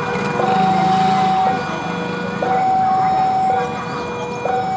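Railway level crossing alarm sounding: an electronic two-tone signal that alternates between a higher and a lower tone, each held about a second. Beneath it is the low running hum of an approaching JR 203-series electric commuter train.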